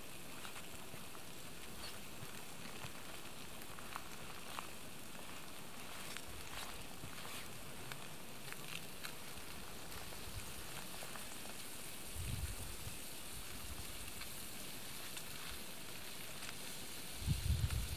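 Arctic char frying in a pan on a camping stove: a steady sizzle with scattered pops and crackles. Low rumbles of wind on the microphone come in briefly about twelve seconds in and again near the end.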